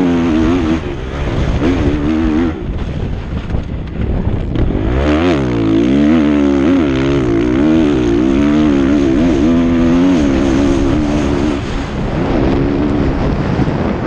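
Kawasaki motocross bike's engine running hard, its pitch rising and falling over and over as the rider works the throttle and shifts, with the quickest swoops about five to seven seconds in. Heard close from a camera mounted on the bike, over rough road noise.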